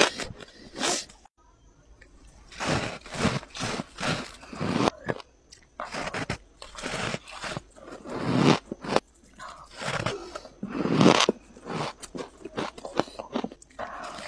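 Freezer frost being bitten and chewed, a run of crunchy bites one after another, with a brief pause about a second in.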